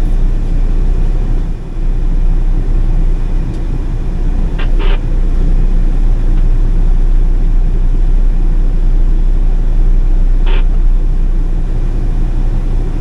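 Large farm diesel engine running steadily, a loud, deep drone with no letup. Two brief higher sounds cut through it, about five seconds in and again near ten seconds.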